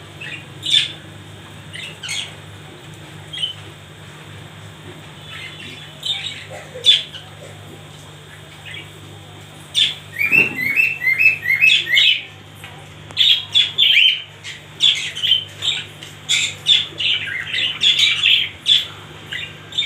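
Budgerigars chirping and squawking in a cage: scattered single calls at first, then from about halfway a run of quick rising chirps and near-continuous chatter. A steady low hum runs underneath.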